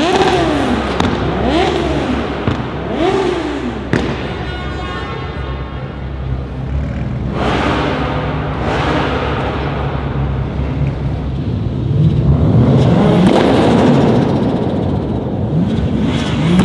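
A performance car engine being revved hard in three quick blips, followed by a single sharp crack about four seconds in. It then runs more steadily before being revved up again around twelve seconds in and once more near the end.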